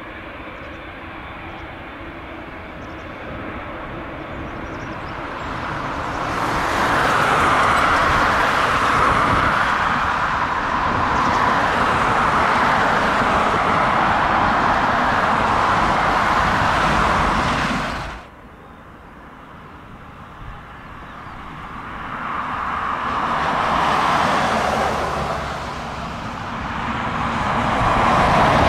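Boeing 787-8 jet engines running as the airliner taxis, the noise swelling about six seconds in and then cutting off abruptly after about eighteen seconds. After the cut the jet noise of its takeoff builds, eases briefly and rises again as it climbs away.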